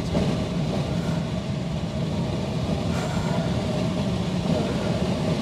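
Tow plane's piston engine running steadily under power during an aerotow of a sailplane, a constant drone with no change in pitch.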